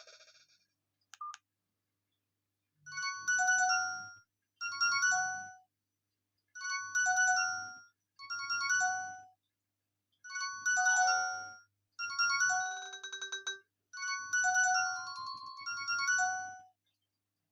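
Alcatel 232 mobile phone ringtone playing: a synthesized melody of several notes at once with a low beat under it, in seven short phrases with brief gaps between them, stopping near the end. A short beep about a second in comes before it.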